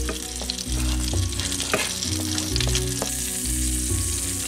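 Food sizzling in oil in a frying pan, with several light clicks of a utensil against the pan, over background music.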